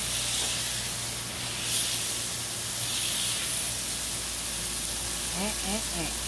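Smashburger patties sizzling on a very hot Blackstone flat-top griddle: a steady hiss of frying beef fat.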